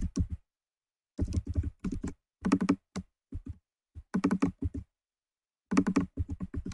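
Computer keyboard being typed on in short bursts of quick keystrokes, with brief pauses between the bursts.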